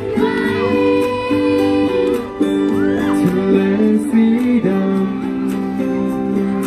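A live pop ballad with guitar playing held chords and a voice sliding through a few long notes.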